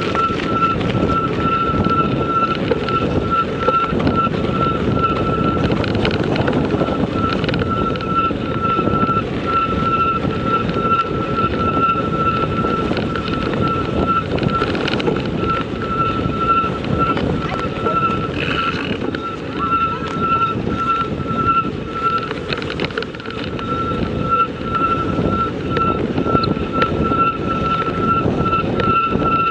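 Steady rumble of a vehicle in motion with wind on the microphone, and a thin, high, rapidly pulsing whine throughout.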